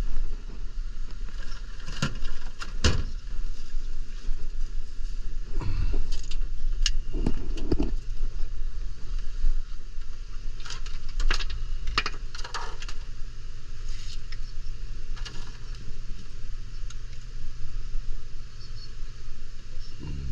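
Scattered knocks, clicks and rattles of PVC drain pipe and fittings being handled, over a steady mechanical hum.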